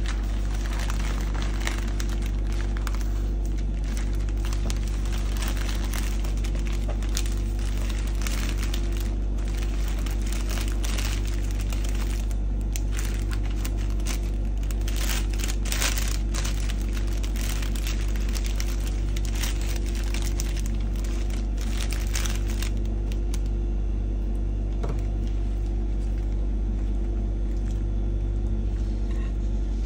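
Florist wrapping film and paper crinkling and rustling on and off as a bouquet is wrapped by hand, stopping a few seconds before the end. A steady low hum runs underneath.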